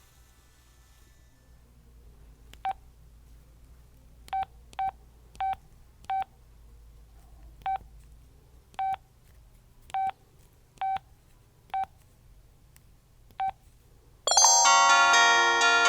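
Samsung SPH-N195 cell phone key beeps: eleven short beeps at the same pitch, unevenly spaced, as keys are pressed while choosing a ringtone. About a second and a half before the end, a ringtone starts playing loud, with several notes sounding at once.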